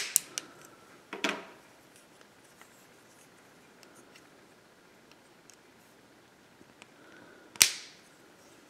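Small plastic Lego minifigure parts being handled: a few quick clicks at the start as the legs are snapped back on, a short scrape a little after a second in, faint ticks, then one sharp plastic knock near the end.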